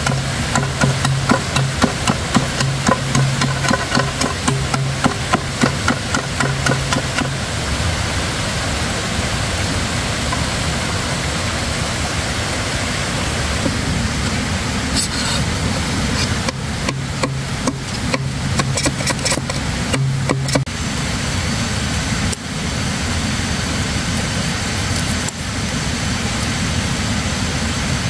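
Machete blade chopping and cutting into a green bamboo stem: a quick run of sharp knocks, about three a second, for the first several seconds, then another burst of chopping strikes later on.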